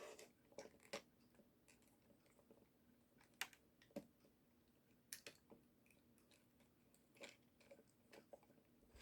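Near silence with a few faint, scattered clicks of small plastic toy-mechanism parts being handled as a motor is pressed onto the locating pegs of its plastic gearbox housing, over a faint steady hum.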